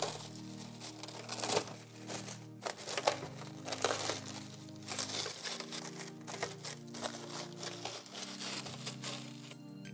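Clear plastic wrap crinkling and crackling as it is handled and pulled back from a new headlight lens cover, stopping near the end. Background music plays underneath.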